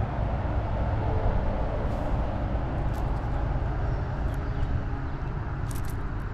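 Wind noise on the microphone, a steady low rumble. Over it come a few faint clicks, about a third of the way in, halfway and near the end, as a plastic topwater lure and its treble hooks are handled.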